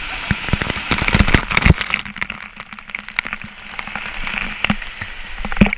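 Waterfall water spattering and splashing close by: a dense, irregular patter of drops and splashes over a steady wash of falling water.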